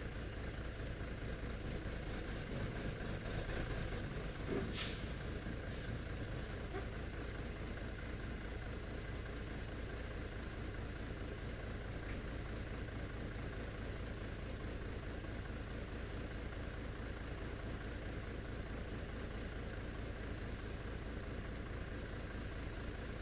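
Nissan Diesel (UD) truck's diesel engine idling steadily, with a short sharp hiss about five seconds in and two fainter hisses just after.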